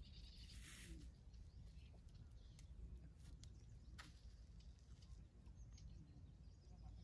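Near silence: faint outdoor background with a low rumble, a brief hiss about a second in and a few light clicks.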